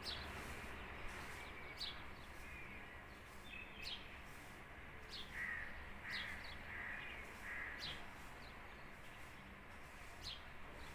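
Birds calling: short, sharp rising chirps every second or two, with a run of four short, lower calls about halfway through.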